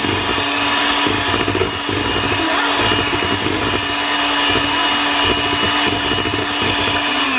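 Electric hand mixer running at a steady speed with a constant whine, its beaters mixing pancake batter in a bowl.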